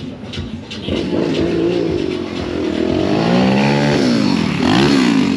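Motorcycle engine revving: after about a second of running, its pitch climbs for over a second, falls away, then climbs again briefly near the end.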